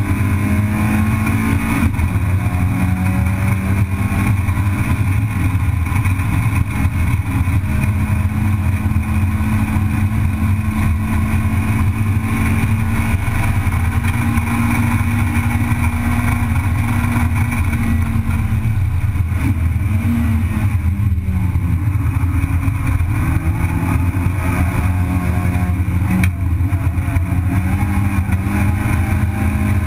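Race car engine heard from inside its own cabin, running hard at high revs for long stretches. About two-thirds of the way through the revs drop and climb again, with another brief change a few seconds later.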